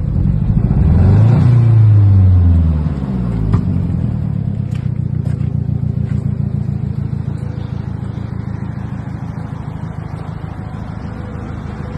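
Mazdaspeed 6's turbocharged 2.3-litre four-cylinder engine revving up and falling back between about half a second and three seconds in, then running steadily. A short click comes just after the rev dies down.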